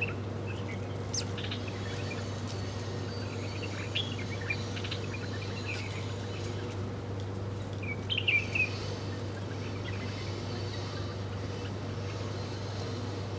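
Small birds chirping: short, scattered high calls, with a brief louder run of chirps about eight seconds in, over a steady low hum.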